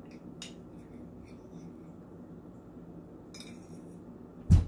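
A fork clicking and scraping lightly against a plate while eating, then one loud, deep thump near the end.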